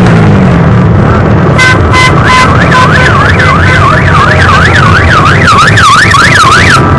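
Dense rumble of many motorcycle engines passing in a caravan, loud throughout. About a second and a half in, an electronic siren gives a few short beeps, then yelps rapidly up and down, about twice a second, until near the end.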